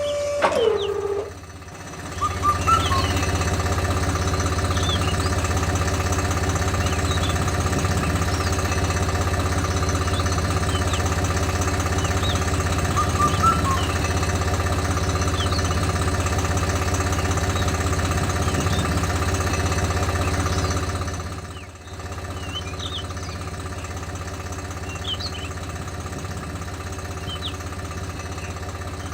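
The motor of a homemade mini tractor running steadily, a low pitched hum. It starts about two seconds in after a whistle-like tone falls in pitch and stops, and drops to a lower level about 22 seconds in.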